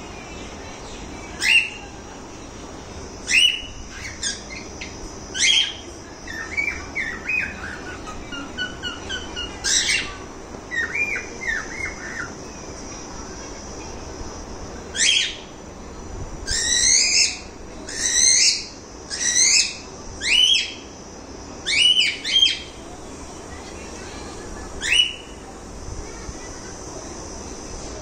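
Cockatiels calling: about fifteen loud, sharp calls that sweep up and down in pitch, some coming in quick runs near the middle and later. Between them, for several seconds early on, there is a stretch of softer, quick chattering chirps.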